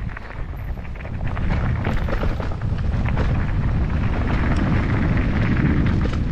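Wind buffeting the microphone over the rattle of a mountain bike rolling on a rough trail. It grows louder about a second and a half in.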